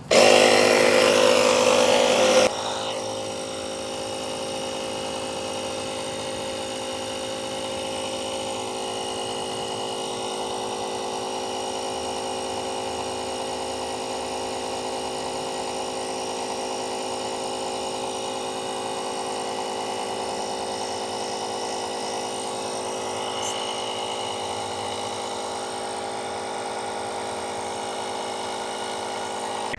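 Air compressor of a Stanley Jump It 1000 jump starter running steadily with a constant motor whine, reinflating a freshly plugged tire. It is louder and noisier for about the first two and a half seconds, then settles to an even level.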